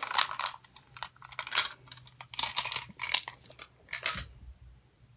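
Cardboard toy box being handled: a string of short, irregular scraping and rustling sounds.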